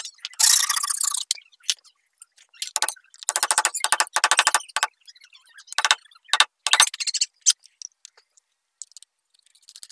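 Scraping on wood in a series of short strokes, each a fast run of ticks, with a louder hissing scrape about half a second in.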